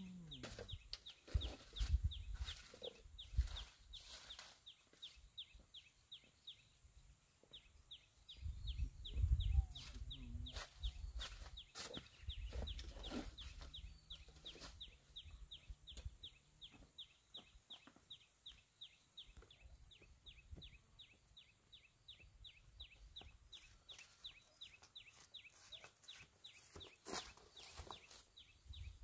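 Chickens clucking over a rapid, even high chirping at about four to five chirps a second, with stretches of low rumble on the microphone.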